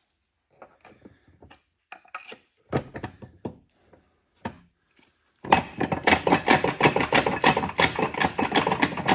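Steel gear shafts clunking and rattling in an NV4500 five-speed transmission's cast-iron case as they are rocked hard by hand. First a few scattered knocks, then from about five and a half seconds in a fast, loud run of rattling clanks. The countershaft is stuck fast and won't budge because its bearing can't be removed.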